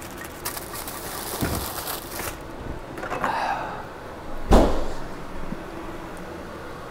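A refrigerator door shutting with a single thud about four and a half seconds in, after a couple of seconds of rustling and small knocks as things are handled inside the fridge.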